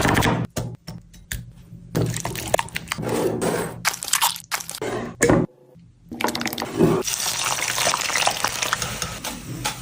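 Wet squishing and liquid sounds of chicken being handled in a marinade, in short clips cut abruptly together, with a steadier hiss from about seven seconds in.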